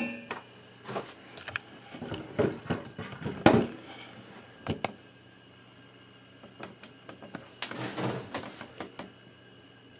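Handling noise as black steel long-tube exhaust headers and their plastic wrap are moved about on a cloth-covered table: a few knocks and rustles, quieter for a couple of seconds past the middle, with another rustle near the end.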